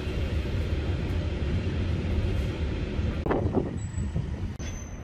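Low, steady rumble of a Matterhorn Gotthard Bahn narrow-gauge train, heard from inside the carriage. A little over three seconds in, the sound breaks off for a moment, and near the end a thin, steady high tone begins.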